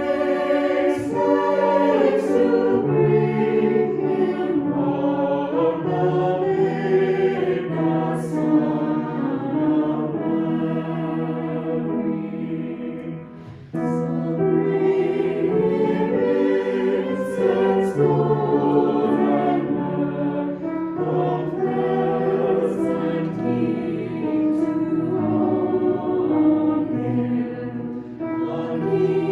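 Choir singing a sacred piece in sustained, held chords, with a brief pause about halfway through before the singing starts again.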